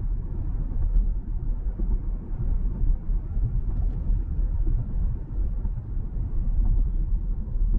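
Steady road and tyre rumble heard inside the closed cabin of a Fisker Ocean electric SUV cruising on a city street, with no engine sound. The noise is deep and even, reading about 55 dB on a sound-level meter.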